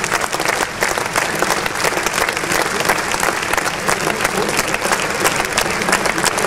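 A large crowd applauding steadily, many hands clapping at once, with some claps close by.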